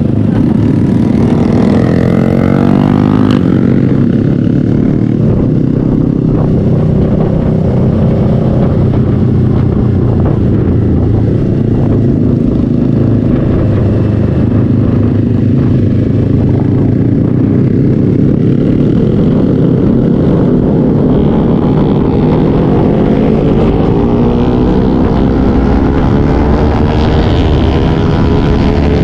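Motorcycle engine running while riding, with a heavy rumble of wind noise; the engine pitch rises as it accelerates about a second in and again near the end.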